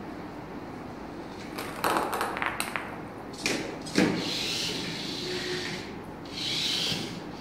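Small remote-controlled robot on a plastic tabletop field: a rattle of plastic clicks, then two sharp knocks about three and a half and four seconds in, followed by its small motors whirring in two spells.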